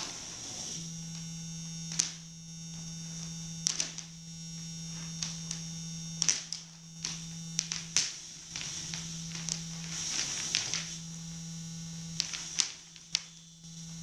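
Amplified electronic noise: a steady low electrical hum with a high buzz above it, the hum breaking off several times, about halfway through and again near the end, while sharp clicks and crackles pop in at irregular moments.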